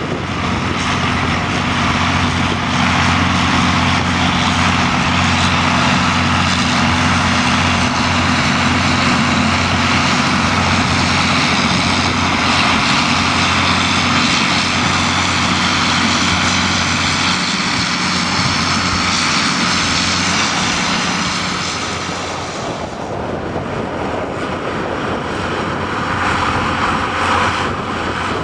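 County 1454 tractor's diesel engine running steadily under heavy load as it pulls an eight-furrow push-pull plough through the ground. About three-quarters of the way through the sound drops a little and loses some of its top end.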